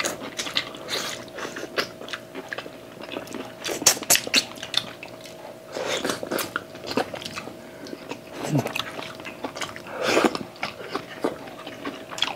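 Close-up eating sounds of two people gnawing braised chicken and pork spare ribs off the bone by hand: wet biting and chewing with many short, irregular smacks and clicks.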